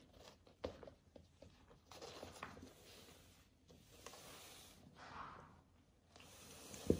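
Faint scuffling and rustling of a cat and a rabbit tussling on a hard floor, with paws scrabbling and a few light knocks, the loudest a soft thump near the end.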